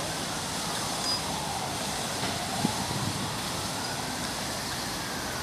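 Steady city background noise beside a park. A faint high tone slowly falls and then rises again, like a distant siren's wail.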